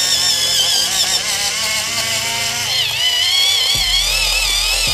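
Battery-powered electric pencil sharpener running with a pencil in it: a high motor whine that wavers in pitch as the blade shaves the wood, dipping briefly about three seconds in.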